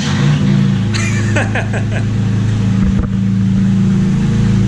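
Toyota Tacoma's V6 engine just started and running at a steady, loud idle with no exhaust fitted, the raw open exhaust note coming straight out of the Y-pipe.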